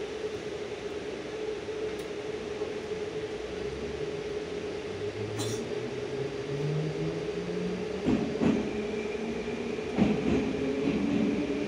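81-725.1 'Baltiets' metro car pulling away from a station, heard from inside the car. A steady hum runs throughout. From about four seconds in, the traction drive's whine rises in pitch in steps as the train speeds up, and two wheel knocks on rail joints come near the end.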